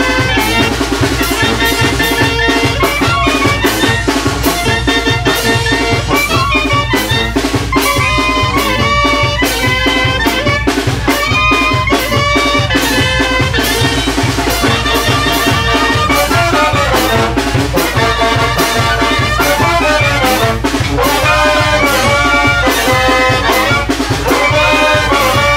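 Loud brass band music: trumpets and other brass play a melody over a steady drum beat.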